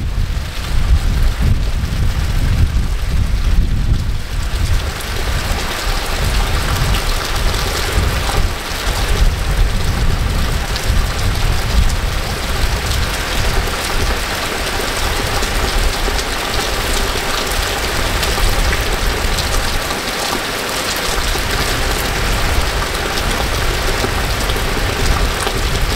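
Heavy rain falling steadily, with a low rumble in the first few seconds; the rain's hiss grows louder after about four seconds.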